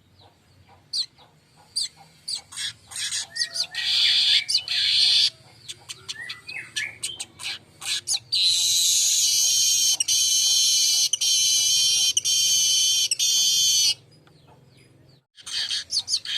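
Weaver bird (manyar) calling: scattered short high chirps, then about eight seconds in a long, dense, high buzzing song lasting some six seconds that stops abruptly, with chirps starting again near the end.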